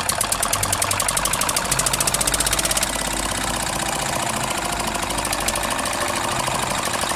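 Homemade model diesel engine running and driving a belt-driven DIY water pump, with a rapid, regular beat that smooths out about three seconds in.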